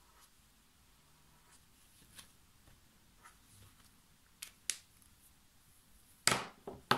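Plastic clicks and knocks of a Royal Talens Ecoline brush pen being handled, capped and set down on the table: two sharp clicks about four and a half seconds in, then a louder knock near the end and a second, shorter one just after.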